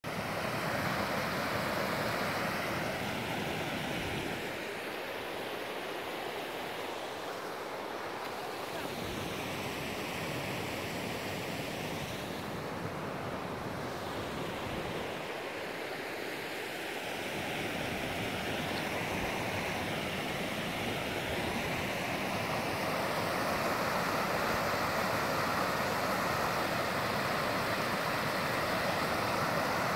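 Mountain stream rushing over rocks: a steady, even hiss of white water that grows louder near the end. Wind rumbles on the microphone at times.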